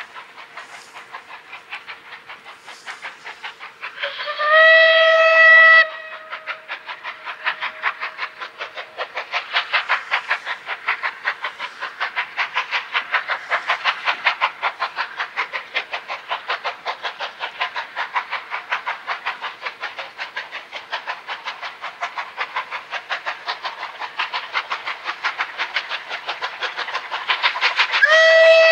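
Steam locomotive hauling a passenger train, its exhaust beating in a rapid, even rhythm that grows louder as it draws nearer. Its steam whistle sounds one blast of about two seconds roughly four seconds in, and a second blast begins near the end.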